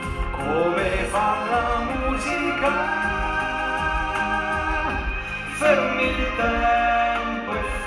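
Male singer singing long held notes live into a handheld microphone, over instrumental accompaniment, with a loud swell about five and a half seconds in.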